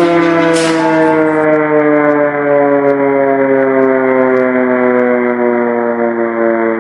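Air-raid siren sounding one long wailing tone, its pitch slowly falling.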